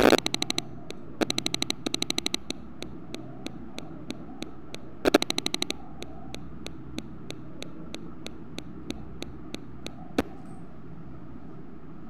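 Sharp mechanical clicks from hands working the microwave oven's control panel board. There are quick rattling runs of clicks at the start, about a second in and about five seconds in, then single clicks about three a second, ending with one louder click about ten seconds in.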